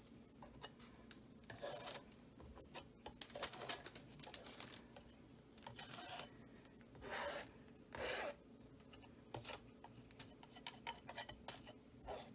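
Small palette knife scraping and spreading a base coat of acrylic paint across a stretched canvas, in irregular strokes with several louder scrapes.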